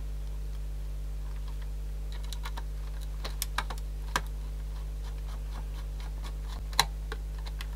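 Scattered light clicks and taps of small screws and tools on the plastic case of a cassette Walkman being put back together, the sharpest about four seconds in and again near seven seconds, over a steady low hum.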